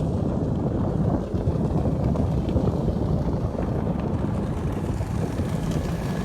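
Wind buffeting the microphone, a steady gusty rumble with no clear pops or splashes standing out.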